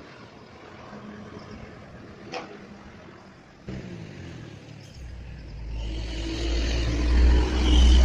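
A bus approaching along the road: faint road noise at first, then a deep engine rumble that builds over the last three seconds and is loudest near the end.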